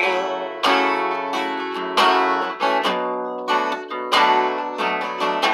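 Acoustic guitar strummed in chords, a fresh strum about every second with each chord ringing on in between.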